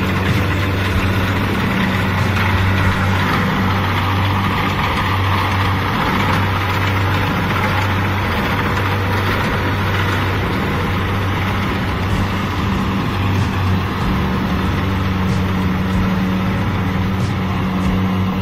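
Kubota DC-70 combine harvester running steadily under load while cutting and threshing rice: a constant engine hum under a broad mechanical noise from its working machinery.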